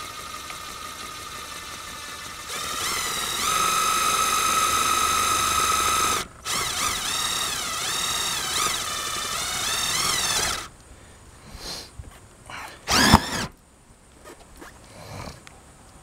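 Cordless drill driving a self-tapping screw through metal roofing trim. The motor whine is steady at first and grows louder about two and a half seconds in. It stops briefly around six seconds, then runs again with its pitch wavering as the screw bites, and cuts off after about ten seconds. A single sharp knock comes near thirteen seconds.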